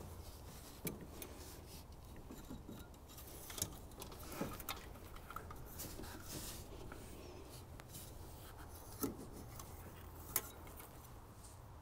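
Faint handling noises of hands working on a car engine: light rubbing with scattered clicks and taps, a handful of them sharper, over a low steady hum.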